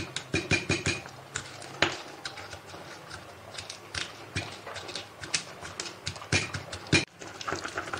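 Stone pestle pounding unpeeled garlic cloves in a stone mortar: irregular dull knocks, about two a second.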